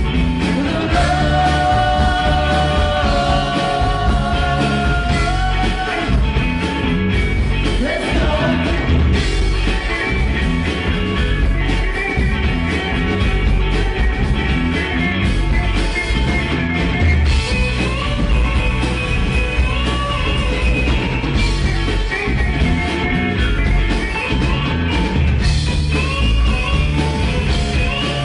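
Rock band playing a song with singing and a steady driving beat.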